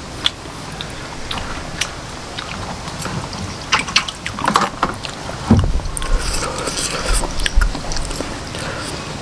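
A person chewing a mouthful of octopus and rice noodles, with scattered wet mouth clicks and smacks. There is a low rumble in the second half.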